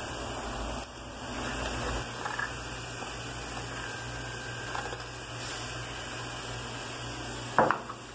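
Steady low hum and hiss of kitchen room tone, with faint handling sounds and one short sharp knock about seven and a half seconds in.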